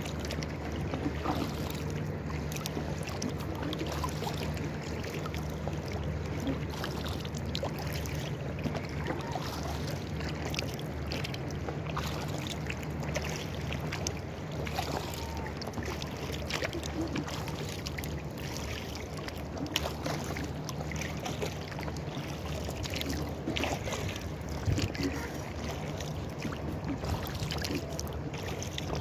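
Water splashing and dripping from paddle strokes and lapping against the inflatable kayak's rubber hull as it moves across the lake, in many small irregular splashes over a steady low hum.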